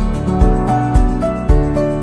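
Instrumental background music with a steady beat and a melody of changing notes.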